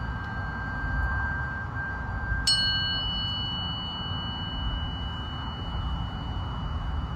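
Tuning forks ringing: one fork's steady tone fades over the first few seconds, then another is struck about two and a half seconds in and rings on with a clear, pure high tone.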